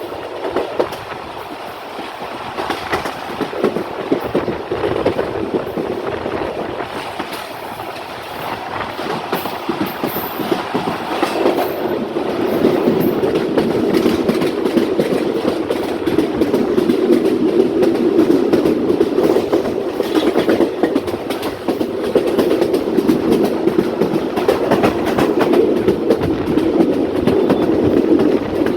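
Passenger train running on the track, its coach wheels rumbling and clattering over the rail joints. The sound grows louder about twelve seconds in.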